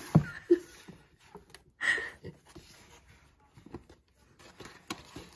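Postcards and a kraft-paper accordion file folder being handled: light paper rustling and small taps. There is a sharp thump just after the start and a short papery slide about two seconds in.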